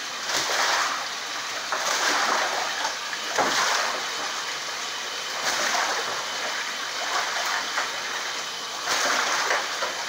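A goose bathing in a bathtub, splashing and ducking under the water in repeated bursts a second or two apart, with a lull in the splashing after the middle.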